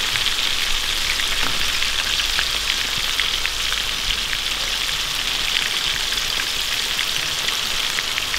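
Battered trout strips deep-frying in hot oil in a pan: a steady sizzle with a dense patter of small crackles.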